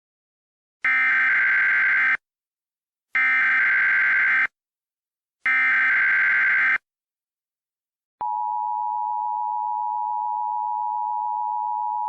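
Emergency Alert System SAME header: three identical bursts of rapid digital data tones, each about a second long with a second's gap between them, followed about eight seconds in by the steady two-tone EAS attention signal.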